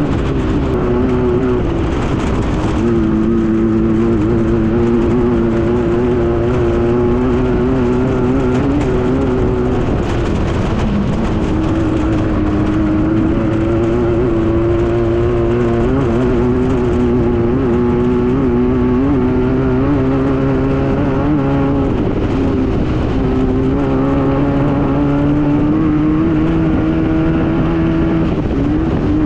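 Air-cooled Volkswagen engine of a Class 9 desert race buggy running hard and loud at high revs. Its pitch dips and climbs again several times, near the start, around the middle and again later on.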